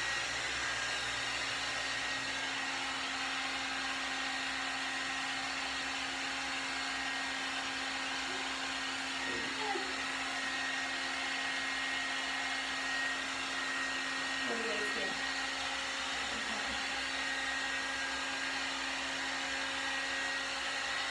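One Step hot-air brush hair dryer running steadily and very loud: a continuous rush of air with a constant whine from its motor, as it is worked through the hair.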